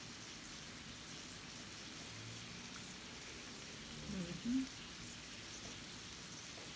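Faint, steady sizzling and simmering from an electric Korean barbecue grill and hot pot. A short murmured voice comes about four seconds in.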